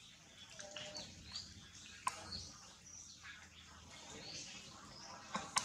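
Small birds chirping over and over in short, high calls, with two sharp clicks, one about two seconds in and one near the end.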